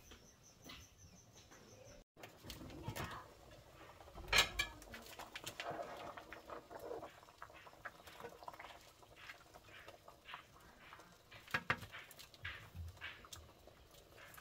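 Faint crackling and snapping of an open wood fire burning under a cooking pot, with scattered clicks and a few sharper knocks, the loudest about four seconds in, as meat is lowered into the pot.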